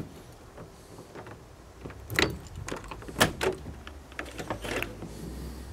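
Key turned in the lock of a van's sliding side door and the handle worked, giving a run of sharp metallic clicks and clunks from the lock and latch, the loudest about three seconds in. A low rumble builds near the end as the door starts to move.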